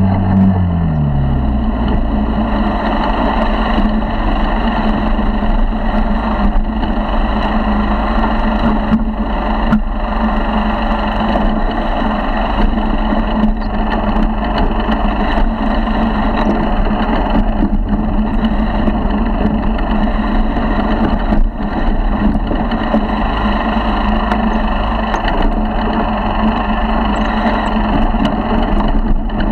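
50cc four-stroke motorized-bicycle engine running steadily under way, its revs dropping in the first second, with occasional knocks as the bike bounces over rough grass ground.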